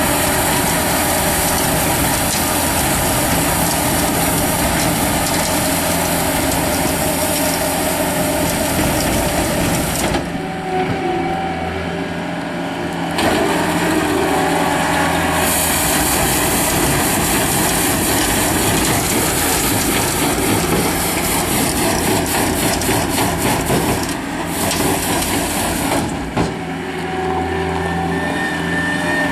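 Skid steer loader's engine running steadily while its hydraulic sweeper broom spins and sweeps, giving a dense hiss over the engine. The hiss drops away twice for a few seconds.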